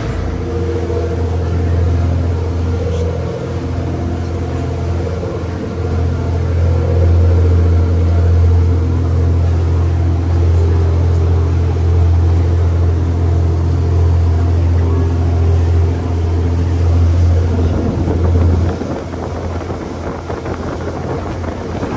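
Tour boat's engines running steadily under way, a deep constant drone with the rush of water from the wake, easing slightly near the end.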